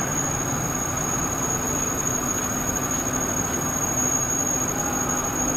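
Steady din of meat-processing machinery in a plant's production hall: an even mechanical noise with a low hum and a thin, high-pitched whine.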